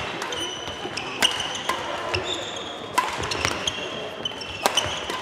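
Badminton rackets striking shuttlecocks with sharp cracks, several in irregular succession from more than one court, mixed with the short high squeaks of sports shoes on a hall floor.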